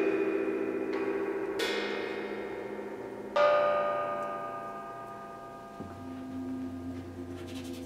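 Improvised metal percussion: bell-like tones struck about once every two seconds, three times, each ringing out slowly with a shimmer of many overtones. A low gong tone swells in about six seconds in.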